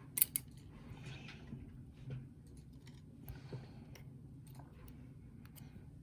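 Light clicks and small scrapes of lock pins and springs being handled as a lock cylinder is taken apart. Two sharp clicks come just after the start, then scattered faint ticks.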